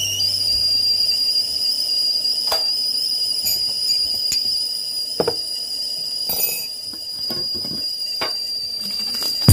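Stainless-steel stovetop whistling kettle whistling steadily at the boil in one high tone, with a few light knocks of handling around it; the whistle cuts off near the end.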